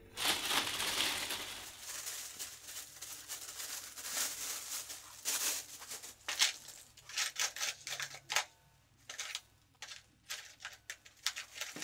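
Clear plastic wrapping crinkling and rustling as it is pulled off a weather-station temperature-and-humidity sensor, then scattered light clicks and rustles as parts are handled.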